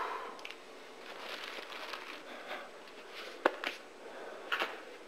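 Rustling and crinkling of sacks being handled, with a sharp knock about three and a half seconds in and another brief clatter about a second later.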